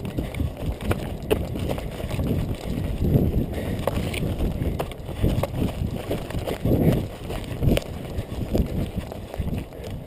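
A runner's footsteps through heather and bilberry undergrowth: an irregular run of low thuds, with rustling brush and small sharp snaps of twigs.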